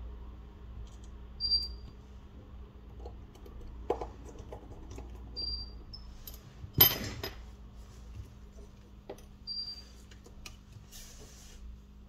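Small clicks and taps of tools and phone parts being handled on a work surface during smartphone repair, with one sharper click about halfway through, over a steady low hum. A short high chirp recurs a few times.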